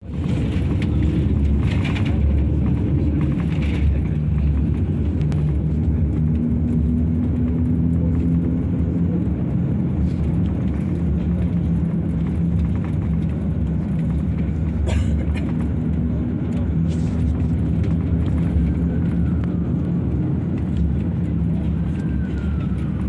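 Low, steady drone of a moving vehicle's engine and road noise, heard from on board.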